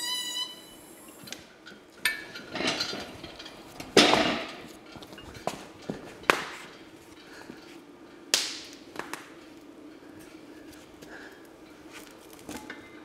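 Heavy cast-iron tractor rear axle and final drive housings clanking and knocking as they are set down from a hoist chain and shifted on cardboard over a concrete floor. There is a string of separate metal clanks, the loudest about four seconds in, and a brief high squeal at the very start.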